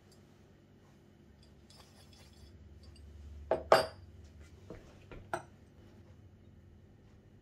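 Small steel parts (bearings, washers, a rod and a pipe sleeve) clinking as they are handled and set down on a wooden table. Two sharp clinks come about three and a half seconds in, then a few lighter ones.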